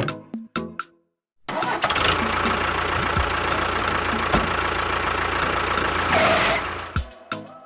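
An engine starts and runs steadily for about five seconds, with a brief rise near the end, then cuts off.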